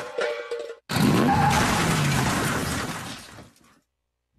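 Car tyres skidding, with a short drop to silence about a second in. The sound then fades out into complete silence near the end.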